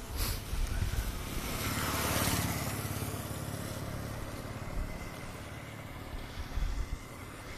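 A motor vehicle driving past, its engine loudest about two seconds in and then slowly fading away.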